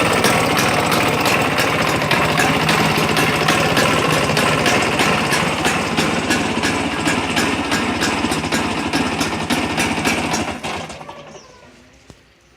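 1995 Vespa Exclusive's single-cylinder two-stroke engine running steadily, then switched off about eleven seconds in and dying away.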